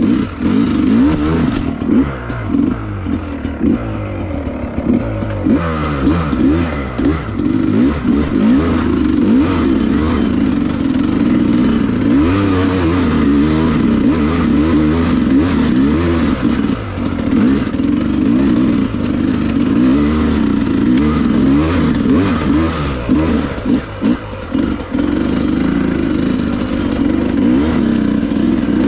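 Dirt bike engine running while riding, its pitch rising and falling constantly with the throttle and gear changes. It is softer for the first few seconds, then pulls steadily louder.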